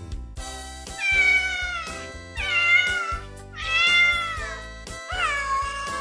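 A cat meowing four times, each meow falling in pitch, over background music.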